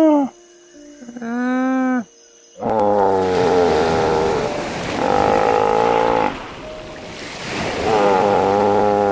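A short alpaca hum about a second in, then a harbor seal pup calling: three long, pitched calls, one after another, over a steady rush of surf.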